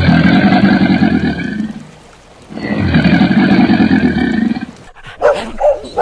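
Two long crocodile growls of about two seconds each, with a pause between them; then, about five seconds in, a puppy barking and yipping in quick short yaps.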